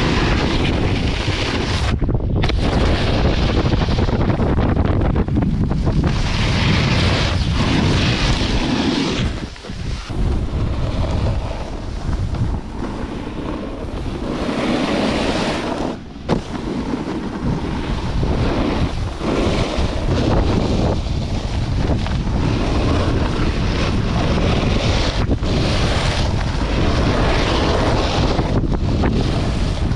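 Wind rushing over an action camera's microphone while riding a snowboard fast downhill, mixed with the hiss and scrape of the board on groomed snow. The rush drops off briefly twice, about ten and sixteen seconds in.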